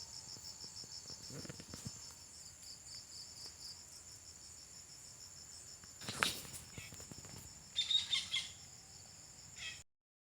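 Crickets chirring steadily in a high, fast-pulsing trill. A sharp call rings out about six seconds in and a short run of bird chirps follows around eight seconds, then the sound cuts off suddenly just before the end.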